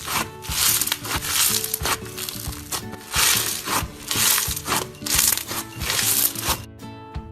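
Slime being squeezed and pressed, giving repeated crackling, crinkling crunches over background music; the crackles stop near the end.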